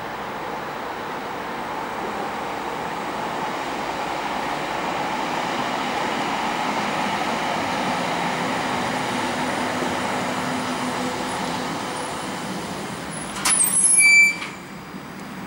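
Berlin U-Bahn small-profile train pulling into an elevated station, its running and braking noise growing louder for about ten seconds and then easing. About thirteen seconds in comes a short, loud high-pitched brake squeal as it comes to a stop.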